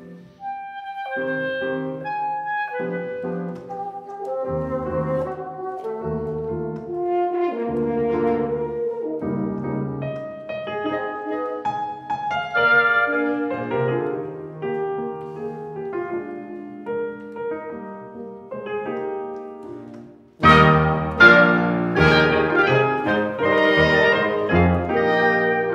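Classical chamber music for grand piano and wind instruments, with French horn and clarinet prominent over the piano. About twenty seconds in the whole ensemble comes in together, fuller and louder.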